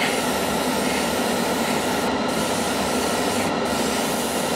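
Airbrush spraying thinned paint at about 25 psi: a steady hiss of air and paint that briefly thins twice.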